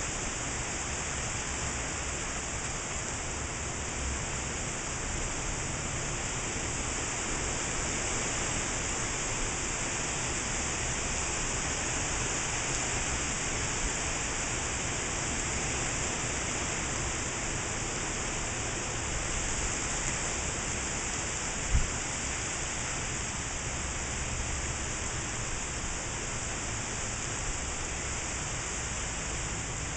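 Heavy tropical-storm rain falling steadily in a continuous even hiss, with gusting wind. A single brief thump about two-thirds of the way through.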